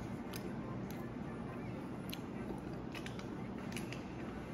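Person chewing a McDonald's chicken nugget, with a few short, sharp mouth clicks scattered through, over a steady low hum.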